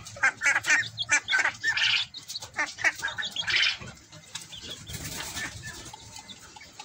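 Caged poultry calling: a fast run of short, high chirping calls over the first four seconds, then fainter and sparser.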